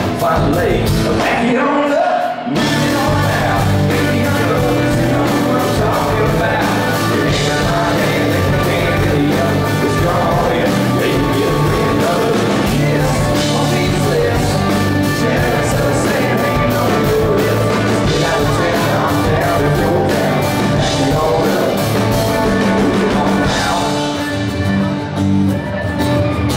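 A live rock band playing with guitars and drums, recorded from the audience, with a short break in the music about two seconds in.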